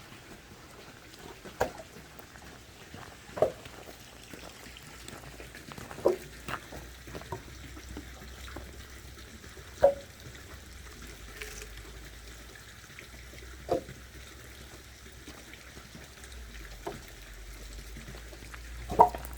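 Water trickling and pouring, with a sharp knock every few seconds; the loudest knock comes near the end.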